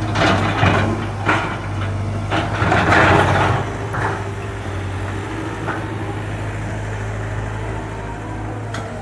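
Caterpillar 320 GC excavator's diesel engine running steadily, with several bursts of rough noise from the machine at work in the first four seconds, the loudest about three seconds in, then a steadier stretch.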